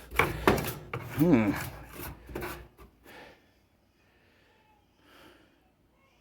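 Scraping and rubbing inside a clothes dryer cabinet as lint, dust and debris are pulled out. There are several quick, rough strokes with a short vocal sound among them, and the strokes stop about three seconds in.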